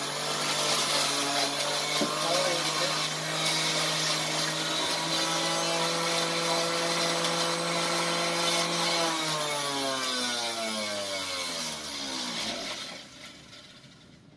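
Electric centrifugal juicer running while grapes are juiced in it: a steady motor hum with a hiss above it. About nine seconds in it is switched off, and the motor winds down in a falling pitch until it stops near the end.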